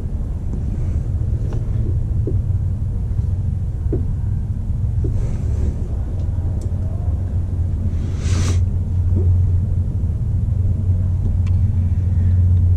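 A steady low mechanical rumble of a running machine, with a few light clicks and a short hiss about eight seconds in.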